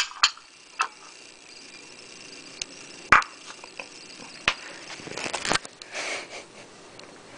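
Ceramic cat bowls clicking on a tile floor a few times, then a run of short sniffs about five seconds in from cats nosing at canned cat food.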